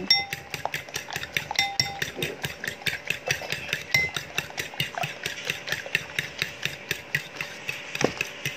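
A fork beating eggs in a ceramic bowl: quick, even clicks of the fork against the bowl, about five or six a second, with now and then a short ringing chink.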